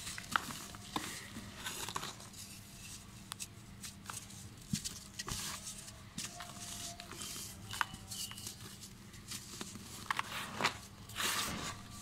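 Dry red dirt blocks being squeezed and crumbled by hand over a plastic tub: gritty crumbling and crackling with many small crisp clicks, over a soft hiss of falling dust. It grows louder near the end.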